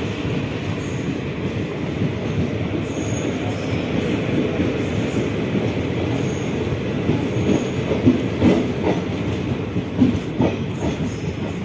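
Passenger train running along the track: a steady rumble of wheels and coaches, with a few sharp clacks of the wheels over rail joints or points about two thirds of the way in.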